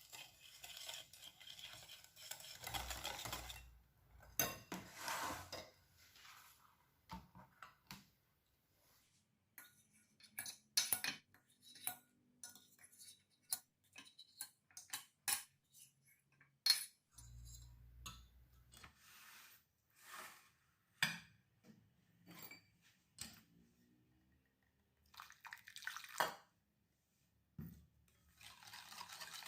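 Kitchen utensils and dishes clinking and tapping against bowls during food preparation: a long string of separate clinks, with a few longer scraping or stirring stretches, the longest at the start and the end.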